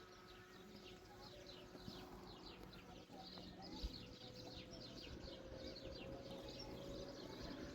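Faint chirping of small birds: many short, quick, high calls, each sliding downward, one after another over a low steady background.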